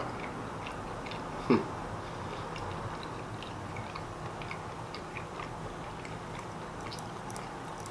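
A person chewing a mouthful of fried chicken sandwich, with many small wet mouth clicks. There is one brief louder sound, falling in pitch, about a second and a half in.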